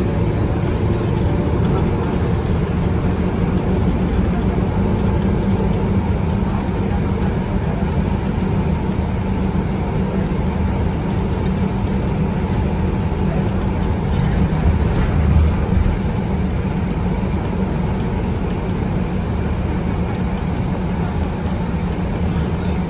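Cummins ISB 6.7 inline-six diesel of a BCI Citirider bus running steadily at cruising speed, heard from inside the passenger cabin together with tyre and road noise; it swells slightly about fifteen seconds in.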